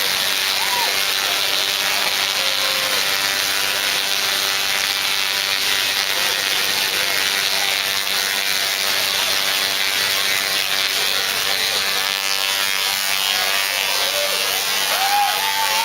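Two Tesla coils discharging sparks at each other, making a steady, harsh electrical buzz.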